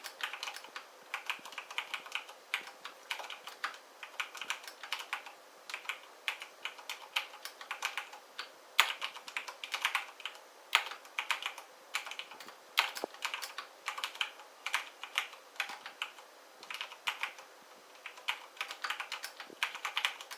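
Typing on a mechanical keyboard: a steady run of irregular key clicks, several a second, as keys are pressed and bottom out.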